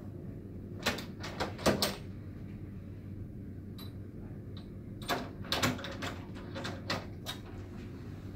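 Crank mechanism of a Draper FlexShade skylight shade being operated by a hand crank pole: a run of clicks and clunks about a second in and again from about five seconds, over a steady low hum.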